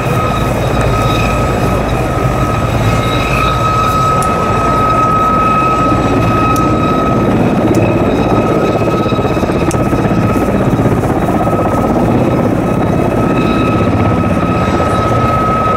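Two military helicopters, a Mi-17 and a Gazelle, hovering close by: steady rotor and turbine noise with a constant high turbine whine.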